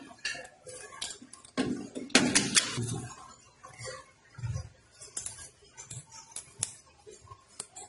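Small irregular metal clicks and taps of wire terminal lugs and a screwdriver against a screw terminal block as heating-element wires are fastened in an electrical control cabinet.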